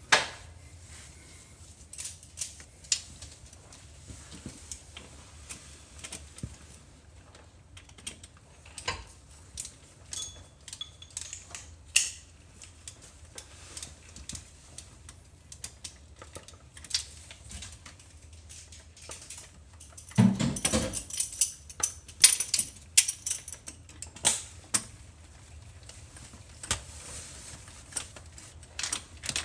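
Hand tools clicking and clinking on metal bolts under a car: scattered sharp ticks and taps, with a denser burst of metallic clatter about two-thirds of the way through.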